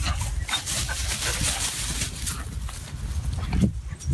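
Dogs running through tall dry grass, the stalks rustling and swishing in quick, irregular strokes, over a steady low rumble.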